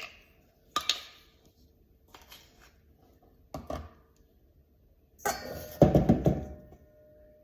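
Kitchen utensils knocking and clattering: a few separate light knocks, then about five seconds in a louder burst of rapid clattering, as of a measuring spoon banged against a bowl and containers.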